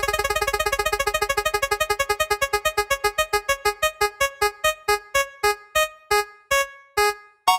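Spinning-wheel selector sound effect: a rapid run of repeated electronic keyboard-like notes that slows steadily from about ten a second to about two a second, then stops near the end as the wheel settles on a colour.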